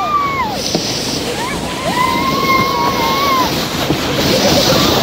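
Towed plastic sleds sliding over snow, a steady rushing scrape, with a child's voice calling out: briefly at the start, then a long, held cry from about two seconds in.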